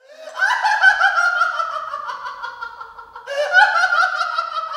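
A man laughing in a high-pitched falsetto, in two long bouts of rapid laugh pulses, each sliding down in pitch. The second bout starts about three seconds in.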